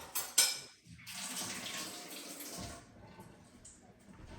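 Two sharp clicks, then a kitchen faucet running for about two seconds and tapering off.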